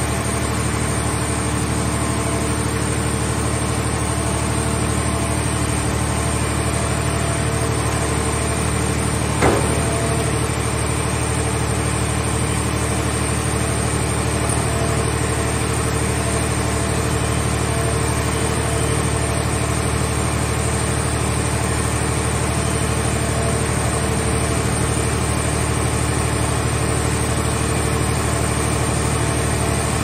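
Heavy machinery running steadily: the engine and hydraulic pump of the car-baling setup, with a steady hum under it. About nine and a half seconds in comes one sharp bang as the scrap car shell is set down into the baler's steel box.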